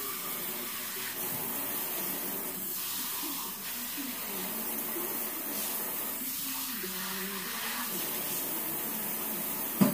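Kitchen sink tap running steadily, water splashing in the sink as slime is washed off hands. A sharp knock near the end.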